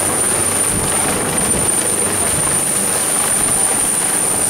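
Helicopter rotors and turbine engines running as the helicopter hovers low and settles toward the helipad. A loud, steady chopping roar is joined by a steady high whine.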